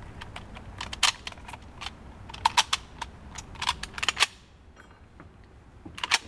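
Metallic clicking and clacking as cartridges are thumbed from stripper clips into the fixed magazines of SKS rifles: irregular clicks, coming thickest in the middle, with a couple of sharper clacks near the end.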